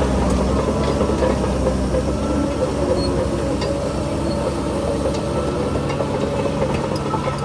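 Heavy construction machine's diesel engine running steadily; its deepest rumble eases about two and a half seconds in.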